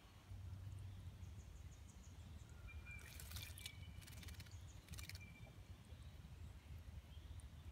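Tufted titmouse bathing in a shallow birdbath: short bursts of splashing as it flutters its wings in the water, one cluster about three seconds in and another about five seconds in, over a low steady rumble.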